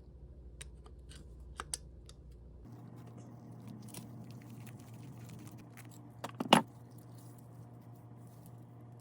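Small metal parts or tools clinking and jangling: a couple of light clicks, then a louder cluster of clanks a little past halfway, over a steady low hum.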